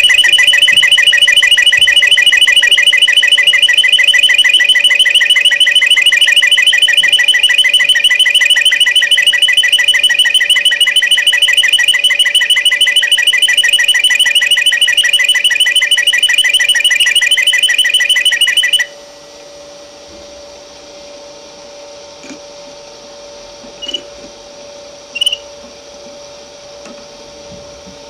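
Domestic canary of the Moroccan flawta song type singing one long, very fast trill on a steady pitch, which cuts off abruptly about nineteen seconds in. After it, two short chirps over a faint steady hum.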